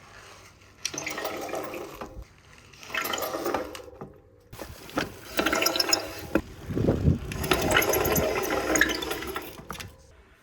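Car brake making a warbling, gobbling noise like a turkey, in four bursts of one to two seconds each, the last the longest.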